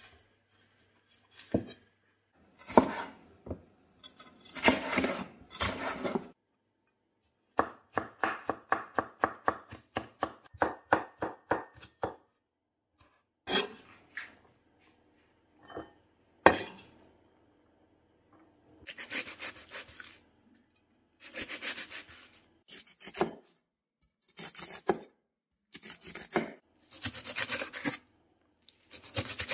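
Chef's knife cutting on a wooden cutting board: slicing and dicing a red cayenne pepper, with a run of quick, even chops about a third of the way in. Later come longer, crunchy strokes as the knife minces an onion.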